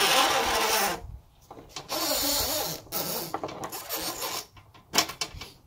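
Rough scraping and rubbing in three long strokes as a part is worked off the truck camper lift mechanism, with a single sharp click about five seconds in.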